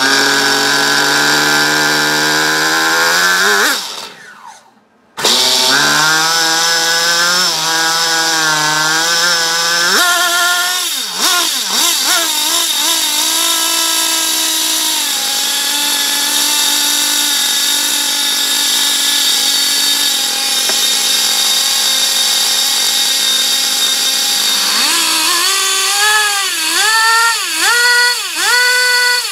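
RB Concept X15 .15 nitro glow engine in a Serpent Impact 835 1/10 RC car running at a high pitch. It revs up, drops away about four seconds in and is running again a second later. Its pitch wavers, then settles to a steady high idle, and near the end it is revved in quick repeated blips, about one and a half a second.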